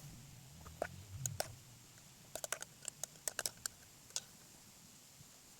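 Faint, light clicks and taps of hands handling and wrapping pieces of salt-soaked black taro, with a quick flurry of clicks in the middle.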